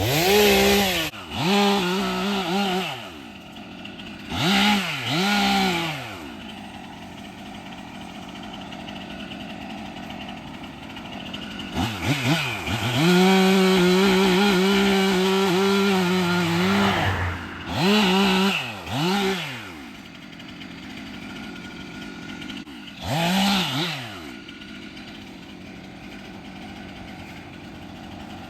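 Stihl MS 362 two-stroke chainsaw idling, then revved again and again in short throttle bursts, its pitch climbing and dropping with each one. About halfway through it is held at high speed for around four seconds.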